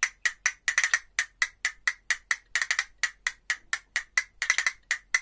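Castanets clicking in a quick rhythm, about four to five sharp clacks a second, single clacks mixed with short double and triple rolls.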